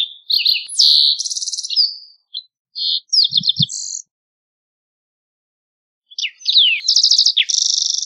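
Green-tailed towhee singing three song phrases, each a few clear slurred whistles running into a fast buzzy trill. The first two come back to back, and the third follows after a pause of about two seconds.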